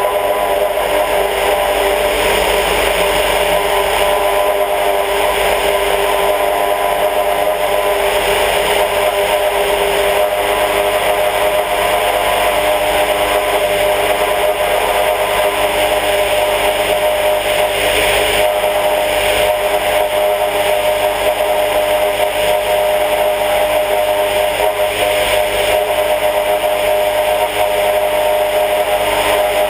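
Sonex light aircraft's Volkswagen-based engine and propeller droning steadily in cruise flight, with air rushing over the outside-mounted camera's microphone.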